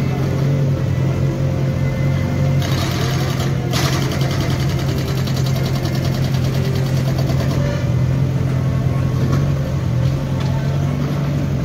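JCB 3DX backhoe loader's diesel engine running steadily under load as the backhoe digs and swings. From about two and a half seconds in, a hissing rattle lasts several seconds while the bucket tips soil into a tractor trolley.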